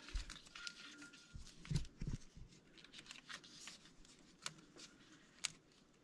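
Faint rustling of hands working through a plastic wiring harness and loom around engine sensor connectors, with a few light clicks.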